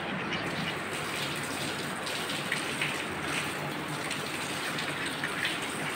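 Steady rush of running water gushing without a break.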